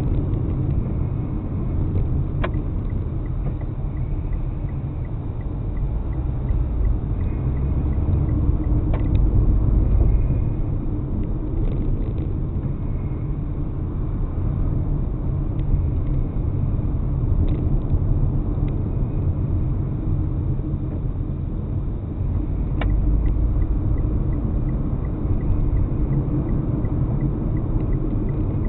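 Steady low road and engine rumble of a car driving, as heard from inside the vehicle, with a faint regular ticking near the start and again in the last few seconds.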